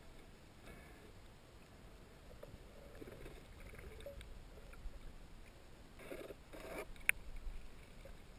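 Faint river water sloshing and gurgling, with a few short bursts about six seconds in and one sharp click just after.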